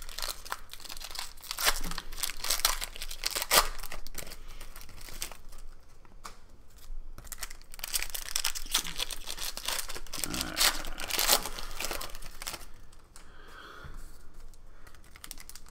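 Foil wrappers of Panini Prizm basketball card packs being torn open and crinkled by hand, in repeated short rips and rustles that ease off near the end.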